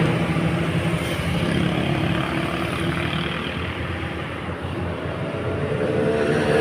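Bus engine running with a steady low drone and mechanical noise, dipping slightly in loudness around the middle.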